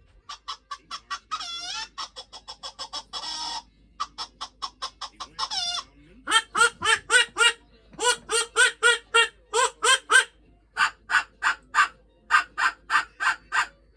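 Barnyard fowl calling in runs of short, rapidly repeated calls, about four or five a second, broken by a couple of sliding squawks.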